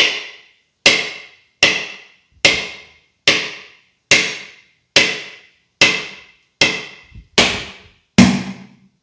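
A dry coconut being struck hard, again and again, to crack its shell: about eleven sharp knocks, evenly spaced a little under a second apart, each ringing briefly. The last knock sounds deeper and fuller.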